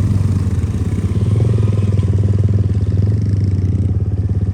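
Motorcycle engine running steadily at low revs while riding slowly.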